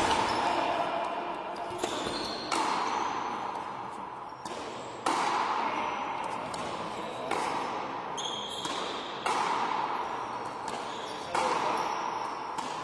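Frontenis rally: a hard rubber ball is struck by strung rackets and smacks against the frontón wall and floor. About ten sharp hits come every one to two seconds, each ringing on in the echo of a large hall.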